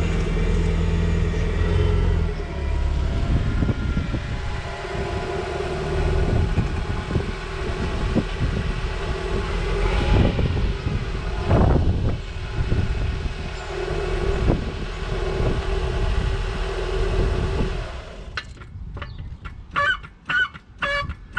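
Car engine and road noise as the car drives, the engine note rising and falling briefly about halfway through. Plucked guitar music takes over near the end.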